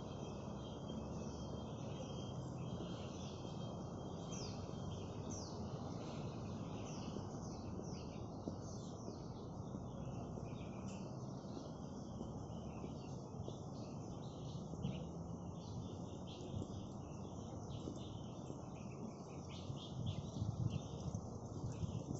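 Small birds chirping in many short, quick, falling notes over a steady background hum.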